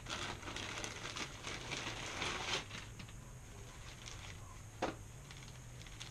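Small clear plastic bag crinkling as it is opened and handled, busiest in the first couple of seconds, with one sharp click about five seconds in.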